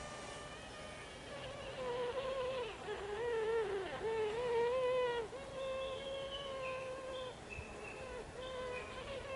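Japanese honeybees piping inside a hive box: several bees' calls overlap, some held steady and some wavering or broken into short notes, loudest about two to five seconds in, over the colony's hum. This is the piping of a colony in swarming season, after its second swarm, with new queens emerging.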